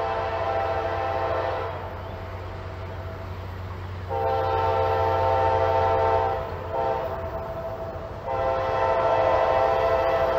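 Norfolk Southern diesel freight locomotive's multi-chime air horn blowing the grade-crossing signal of long, long, short, long as the train approaches. The blasts are chords of several steady tones, over a low steady rumble.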